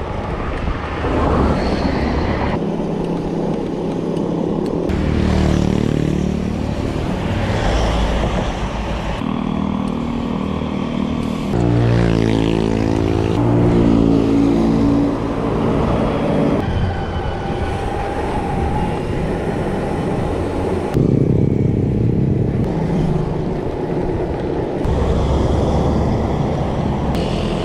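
Road traffic heard from a moving bicycle: motorcycles and cars running close alongside. The engine sound changes abruptly every few seconds.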